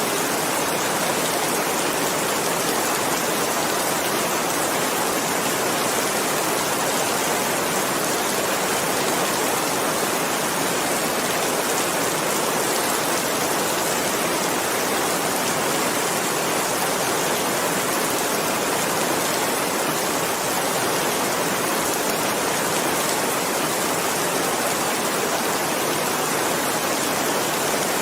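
Steady, even rain falling, a constant dense hiss of drops without breaks or thunder.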